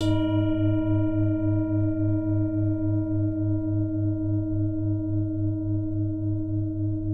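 A single bell-like chime, struck once and left to ring, with several steady overtones over a low hum that wavers about four times a second as it slowly dies away.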